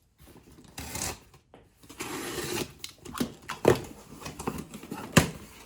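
Cardboard packaging being cut open with a utility knife and handled: scraping and rustling, with two sharp knocks in the second half.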